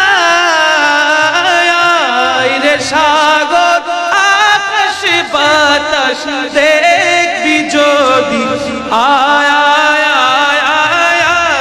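A solo voice singing long, ornamented held notes with a wavering vibrato, a wordless melismatic passage of a Bengali Islamic devotional song (gojol).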